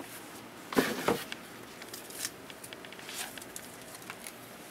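Objects being handled on a workbench: a sharp clatter about a second in, then scattered light clicks and rustles.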